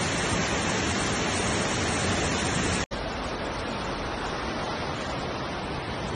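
Floodwater rushing fast through a street, a steady loud wash of water. It breaks off for an instant about three seconds in, then goes on a little quieter.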